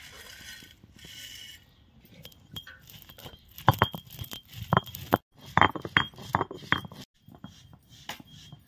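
Hard kitchenware clinking and knocking as it is handled: a run of sharp knocks with a light ring, most of them in the middle of the stretch.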